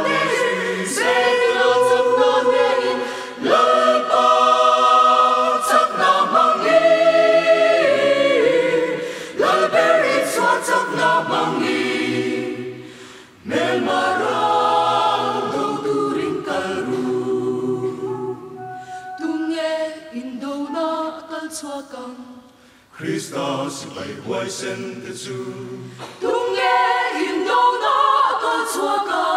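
Mixed choir of women's and men's voices singing unaccompanied in several parts, in phrases that break off briefly about thirteen and twenty-three seconds in.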